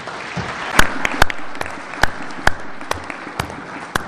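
Audience applauding, a steady mass of clapping with a few sharp, loud single claps standing out above it.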